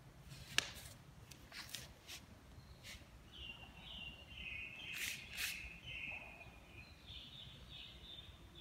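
Young puppies squeaking and whimpering in faint, high, wavering cries from about three seconds in, with a few sharp clicks in the first three seconds.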